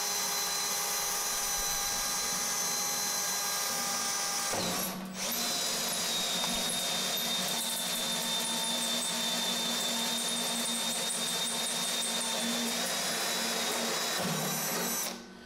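Power drill spinning a hole saw through a stainless steel sink deck, a steady whine that pauses briefly about five seconds in and stops near the end as the cut is finished.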